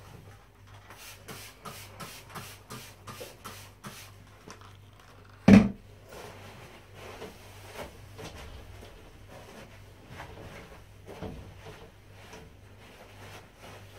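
Trigger spray bottle of glass cleaner squirted about a dozen times in quick succession, about four squirts a second, at a glass shower screen. About halfway through comes a single loud knock, then kitchen roll rubbing over the glass.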